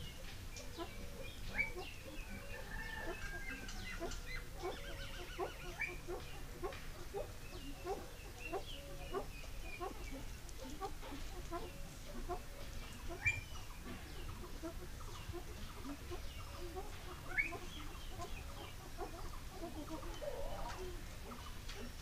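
Captive fowl clucking: a steady run of short soft clucks, with a few sharp, higher chirps standing out every few seconds.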